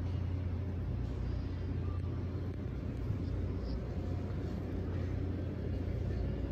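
Steady low rumble of a large store's background noise, with a few faint ticks.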